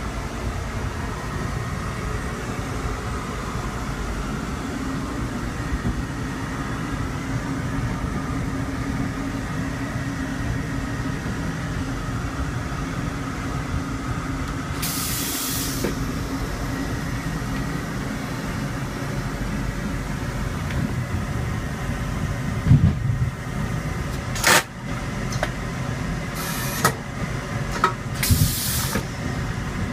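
Steady rumble of a Talgo Series 8 train car running at speed, heard inside its restroom. About halfway through, the vacuum toilet flushes with a loud rushing hiss of just over a second, and in the last third come several sharp clicks and short hisses as the flush cycle's valves work and the bowl rinses and refills.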